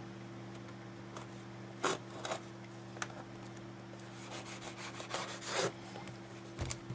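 A small packaging box being opened by hand: scraping and rubbing of the packaging, with a few sharp knocks about two seconds in and again near the end, over a steady low hum.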